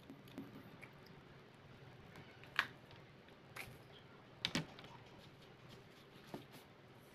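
Wax apple (rose apple) flesh being broken apart by hand: about five faint, crisp snaps and clicks, spread out, the loudest a little past the middle.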